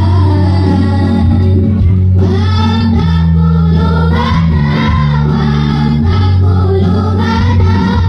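A children's choir singing an Islamic devotional song in unison, led by a woman's voice on a microphone and amplified through loudspeakers, over a steady low sustained backing.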